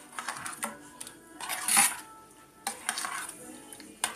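Metal spoon stirring a thin sauce in a small stainless steel saucepan, scraping and clinking against the pan in several strokes. The loudest stroke comes a little under two seconds in.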